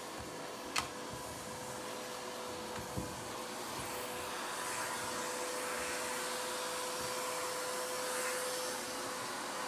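Vacuum cleaner running steadily, a dense rushing noise with a steady hum-like whine, vacuuming dry dirt out of a dusty shag carpet. A sharp click just under a second in and a light knock about three seconds in.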